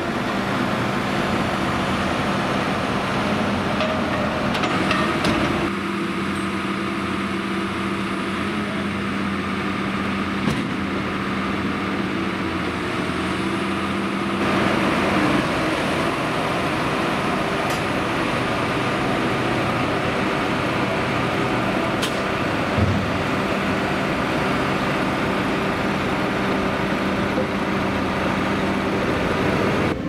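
Steady engine noise from heavy vehicles or machinery: a low, even hum with a few short clicks. The sound changes abruptly twice, about six and fourteen seconds in.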